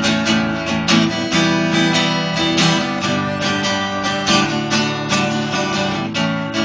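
Acoustic guitar strummed in a steady rhythm, about two strokes a second, in an instrumental break of a live song with no singing.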